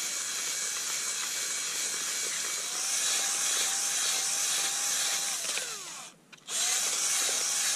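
Cordless drill mixing fishing groundbait, its motor whining steadily. It runs down and stops about six seconds in, then starts again near the end.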